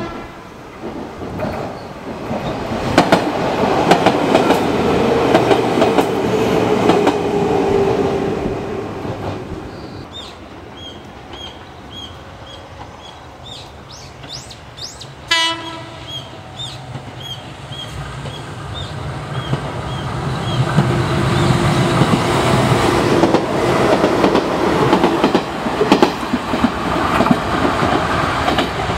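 Izuhakone Railway Sunzu Line electric trains passing a level crossing that has no warning bell. A train rumbles past with wheels clacking over rail joints; about halfway a short horn blast sounds and a second train rumbles through, growing louder toward the end.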